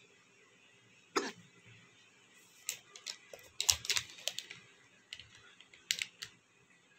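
Plastic wrapper of a chocolate soan papdi packet crackling as it is handled: one sharp crackle about a second in, then irregular bursts of crinkling clicks.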